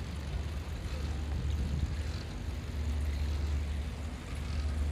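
Wind buffeting the microphone of a camera on a moving bicycle, a steady low rumble with a faint hiss of rolling over paving.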